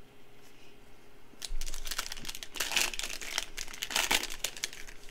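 Foil wrapper of a Panini Prizm football card pack crinkling as it is torn open by hand, starting about a second and a half in, with a loud crackle near the end.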